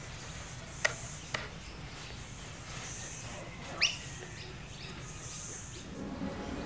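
Outdoor ambience with a few short bird chirps and clicks over a steady low background, and a high hiss that swells and fades about once a second.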